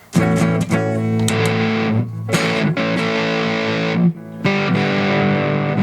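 Electric guitar on its neck-position humbucker played through a fuzz pedal: a few quick picked notes, then thick, sustained fuzz chords with a couple of short breaks between phrases.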